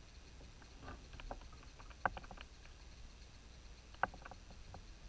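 Light knocks and clicks around a plastic fishing kayak, most likely gear being handled against the hull, over a faint low rumble. Two sharp clacks stand out, about two seconds and four seconds in.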